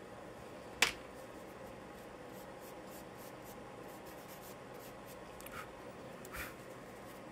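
Charcoal scratching and rubbing on sketchbook paper in short strokes, with one sharp tap about a second in and two louder strokes near the end.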